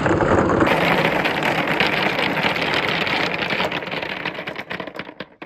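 Many balls rolling together down a wooden chute and tumbling into a plastic tub, a dense continuous rattle. It thins out to a few separate knocks near the end as the last balls arrive.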